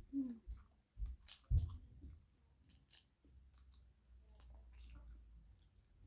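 Chewing, with the crackle and wet squish of boiled crayfish shells being pulled apart by hand, in scattered clicks and crunches.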